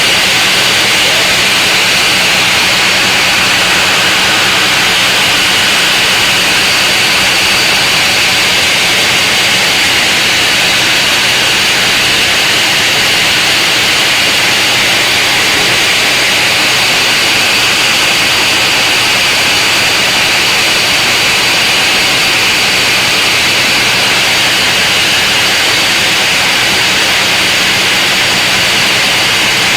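A sawmill saw cutting steadily through a large mahogany log: a loud, unbroken grinding hiss over a steady motor hum.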